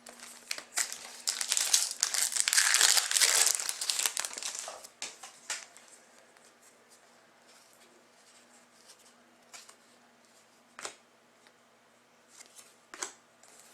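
Trading-card pack wrapper crinkling as it is torn open and handled for the first five seconds or so, then a few light taps and flicks as the cards are handled.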